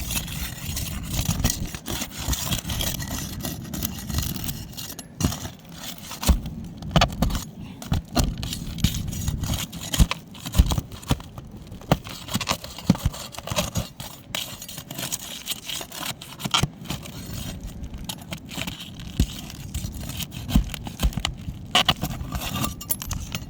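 Flat pry bar scraping and clicking against asphalt roof shingles as they are worked loose and their nails pried up. Many irregular taps and scrapes follow one another throughout.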